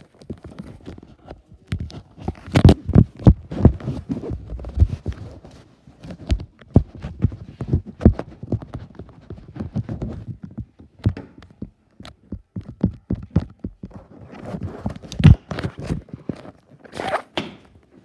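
Irregular footsteps and thumps on a hard floor as a phone is carried while walking, with knocks of handling on its microphone; the loudest thumps come about two to three seconds in and again about fifteen seconds in.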